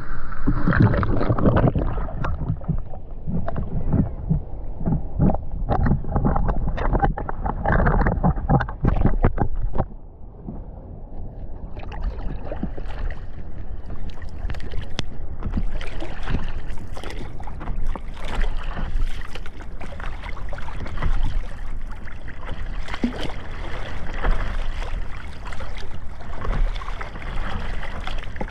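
Water splashing and sloshing right at the microphone, with wind buffeting it for the first ten seconds. The sound then drops briefly and turns to a thinner, hissier crackle of small splashes.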